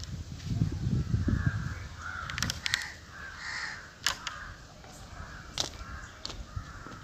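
Birds calling in harsh, repeated caws, with a low rumble in the first couple of seconds and a few sharp clicks.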